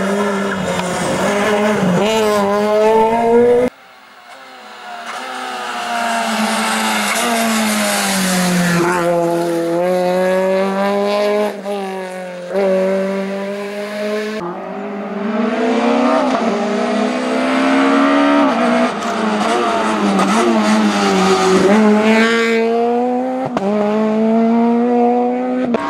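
Peugeot 208 R2 rally car's four-cylinder engine revving hard, its pitch climbing and dropping again and again through gear changes and lifts. The sound breaks off sharply at edit cuts, about four seconds in and again near the middle.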